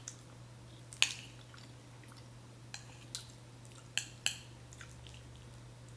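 A metal spoon clinking and scraping against a ceramic bowl several times, the sharpest clink about a second in. A faint, steady low hum runs underneath.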